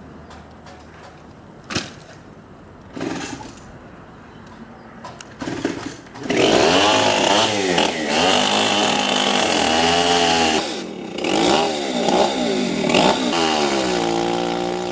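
A few scattered knocks, then about six seconds in a chainsaw starts running hard, its pitch rising and falling again and again as it revs and bogs in the cut through the wall's timber, with a brief drop near the middle before it carries on.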